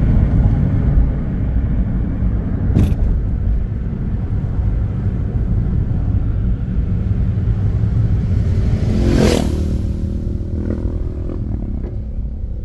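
Car driving on a road: a steady low rumble of engine and tyres, with a short rushing swell about nine seconds in.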